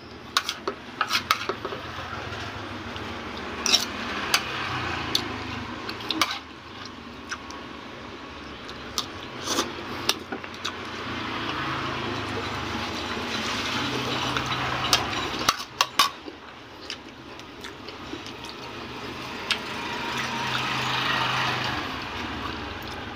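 A spoon clinking and scraping on a plate of rice and vegetables while someone eats, with sharp irregular taps scattered among softer scraping.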